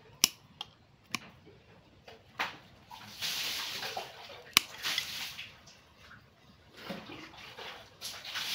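Steel bonsai root cutters snipping through the roots of a dug-up tree stump: several sharp snips, with rustling of roots and soil between them.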